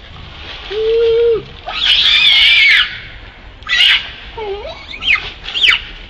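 Pig-tailed macaques screaming: a short low call about a second in, then a long high-pitched scream, followed by several short shrill screams that sweep down in pitch.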